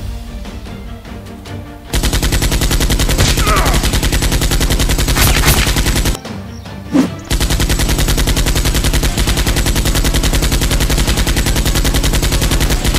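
Machine-gun sound effect laid over a Nerf blaster fight: a loud, fast, even rattle of automatic fire that starts about two seconds in, breaks off for about a second around the middle, then carries on.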